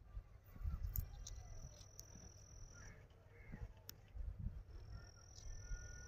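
Faint outdoor ambience: an insect's steady high-pitched buzz in two stretches of a second or two, with faint short bird chirps, a few sharp clicks and low rumbles on the microphone.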